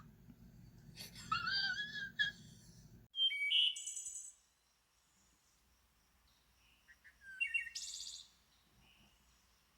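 A wavering, moaning wail over a low hum, cut off abruptly about three seconds in. Two short spells of high bird chirping follow, one just after the cut and one near the end, with near silence between them.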